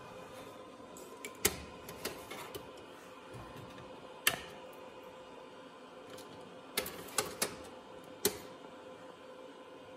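Home server rack equipment running with a steady hum and a constant faint tone. Sharp clicks and taps cut in over it: a couple early, one about four seconds in, and a quick cluster of three or four around seven to eight seconds.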